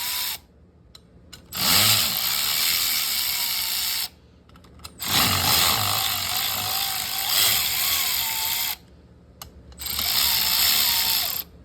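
Cordless power tool, an impact gun or drill with a socket, running in four bursts of a few seconds each as bolts are backed out, its motor whine wavering in pitch under load.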